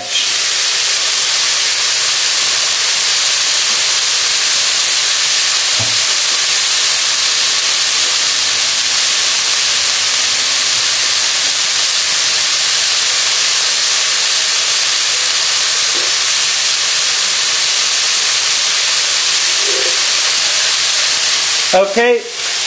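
Stir-fry vegetables sizzling in a hot frying pan over a gas flame: a steady, even hiss.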